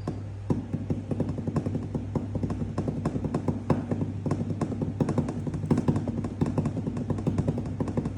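Rapid, irregular typing on a computer keyboard, many key clicks a second, over a steady low hum.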